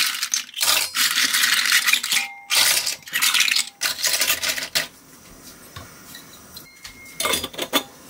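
Whole scallops in their shells being piled into a stainless-steel steamer basket, the shells clattering against each other and the metal in a quick run of bursts for about five seconds. After a quieter pause, a short metallic clatter near the end as the steel steamer lid is put on.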